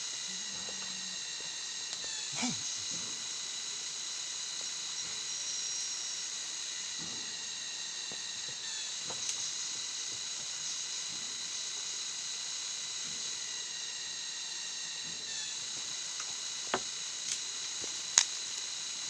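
Steady, high-pitched chorus of forest insects, several shrill tones droning together without a break. A few sharp clicks or knocks near the end.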